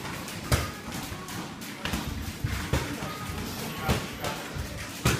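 Sparring in a boxing ring: about five sharp thuds of gloved punches and feet striking the canvas, spread out over a steady background of gym noise.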